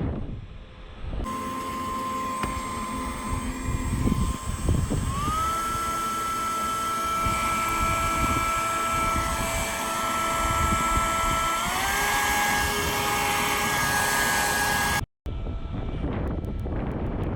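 Leaf blower running with a rush of air and a steady motor whine that steps up in pitch twice as the speed is turned up, with a brief break near the end.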